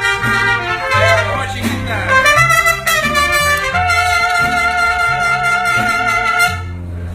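Mariachi band playing an instrumental interlude between sung verses: trumpets carry the melody over strummed guitars and a bass line, holding long notes in the second half.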